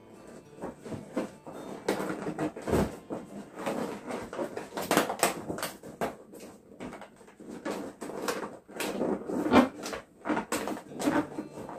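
Inflated latex balloons being handled and twisted together into a cluster: irregular rubbing, scraping and knocking of rubber against rubber.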